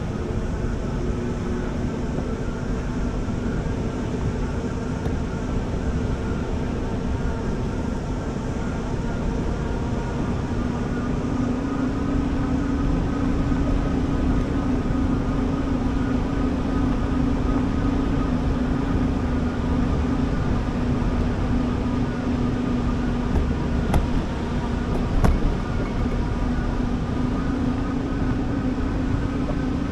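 A bike's motor running at a steady speed, its hum drifting slightly in pitch, over a low rumble of wind and tyres on sand. Two short knocks come near the end.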